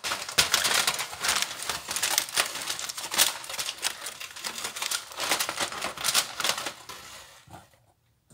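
Aluminium foil crinkling and crackling as hands press and fold it down over a roasting pan, stopping near the end.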